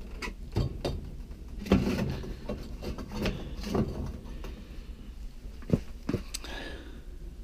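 Irregular knocks, clunks and scrapes of a galvanized sheet-metal feed tube and wood sticks being handled and settled onto a brick rocket stove, with two sharper knocks, one just under two seconds in and one near six seconds.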